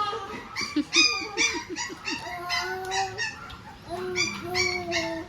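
A toddler singing without words in a high voice: a quick run of short syllables, then several long held notes.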